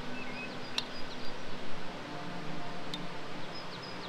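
Birds chirping outdoors over a low ambient hush, with two sharp clinks of a spoon against a bowl, about a second in and again near three seconds.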